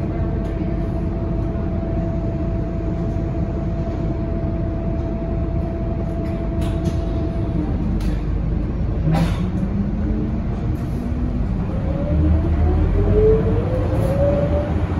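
Inside a Scania K230UB city bus on the move: a steady low engine and drivetrain drone with a held hum, a few knocks and rattles from the body around the middle, then a whine that rises in pitch about nine seconds in and again near the end as the bus accelerates.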